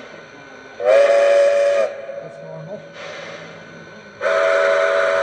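Lionel Fezziwig Railroad #1225 toy steam locomotive's sound system blowing its steam whistle twice, each blast lasting about a second, about a second in and again near the end. Softer hissing steam bursts come before and between the blasts.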